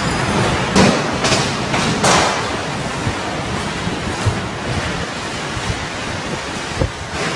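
Strong storm wind heard from inside a building: a steady rushing noise, with a few sharp knocks in the first two seconds and another near the end.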